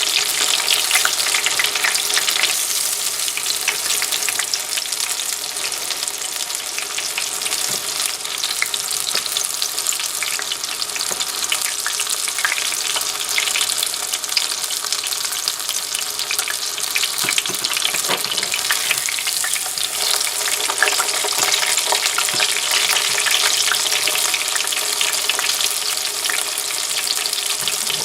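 Breaded chicken breast frying in hot oil in a pan: a steady crackling sizzle.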